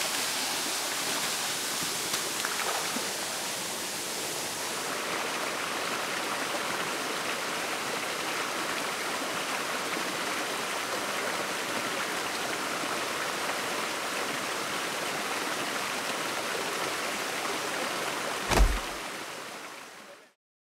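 Steady rushing of a small waterfall and stream. Near the end a single sharp bang, the loudest sound here, breaks in, and soon after the sound cuts off.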